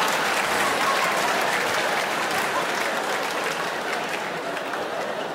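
Large theatre audience applauding, the applause slowly dying away.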